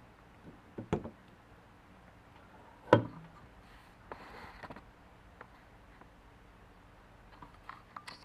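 Handling noises: a sharp knock about a second in and a louder one about three seconds in, a short rustle a little after four seconds, and a few light clicks near the end. No engine is running.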